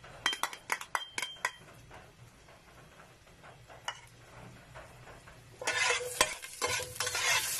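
Onion pieces knocked out of a plastic bowl into a stainless steel pot, a quick run of sharp taps and clinks for about a second and a half. After a quiet stretch, loud sizzling starts near the end as the onions are stirred in the hot oil.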